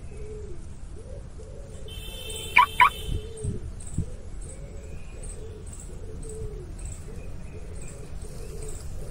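Birds calling: a soft cooing call repeats about twice a second, with faint high chirps and two loud, quick rising calls about two and a half seconds in. A few low thumps follow.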